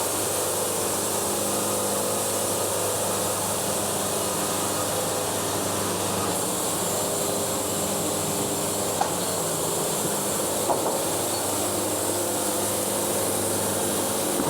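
Wood-Mizer portable band sawmill running steadily, its band blade sawing through a log, with the engine's even drone under a high hiss.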